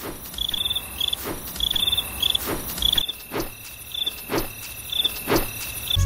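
Night-time crickets chirping in short repeated pulses over a faint steady insect trill, with soft thumps about once a second.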